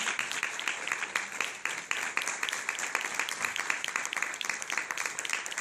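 Audience applauding: many hands clapping at once, a dense steady patter.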